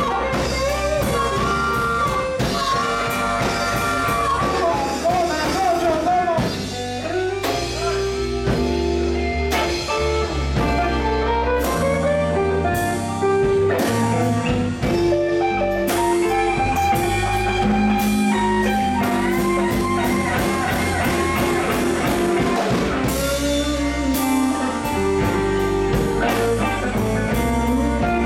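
Live blues band playing a slow blues: electric guitar lines, some bending in pitch, over bass and a drum kit.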